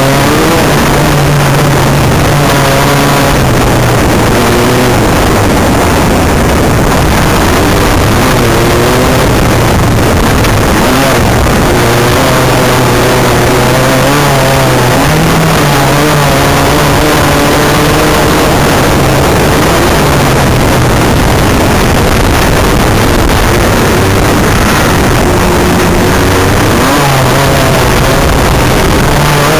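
Off-road race buggy engine heard from inside the open cockpit, its pitch climbing and dropping again and again as the driver works the throttle and gears, over a constant loud rushing noise.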